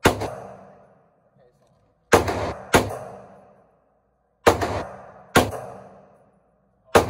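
Six gunshots at irregular intervals, each with a loud sharp report and an echoing tail in an indoor shooting range. Two come close together about two seconds in, and one falls right at the end.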